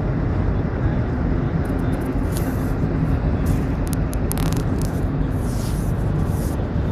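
Steady low rumble of a car's road and engine noise heard from inside the moving car, with scattered short high crackles through the middle.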